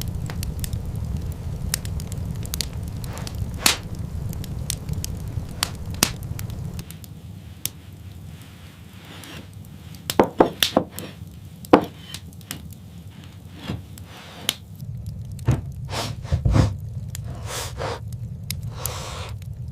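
Scattered sharp cracks and knocks, coming thickest about halfway through, over a steady low rumble.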